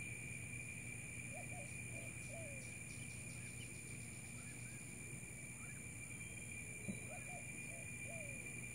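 Outdoor ambience with a steady high-pitched insect drone and a low hum underneath. A bird calls a short phrase of four low notes, the last one falling, twice, with a few faint chirps between.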